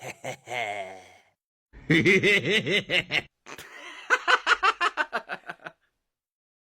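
A person laughing in two rhythmic bouts, starting about two seconds in, after a short gliding vocal sound at the start.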